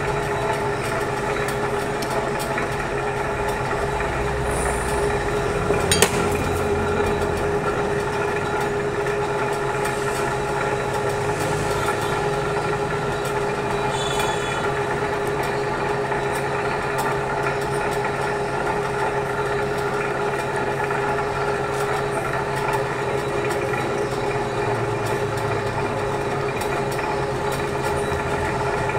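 Metal lathe running steadily while turning a large steel air shaft held in a steady rest, with a constant hum. A single sharp click about six seconds in.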